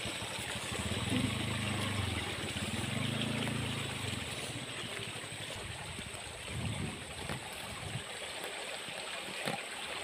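A motorcycle engine running with a few low swells in its note for about the first four seconds, then fading away, under a steady rushing hiss. A few faint knocks come near the end.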